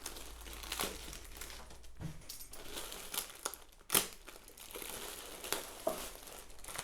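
Packaging crinkling and rustling as the accessories of a space heater are unwrapped and handled, with a sharp click about four seconds in.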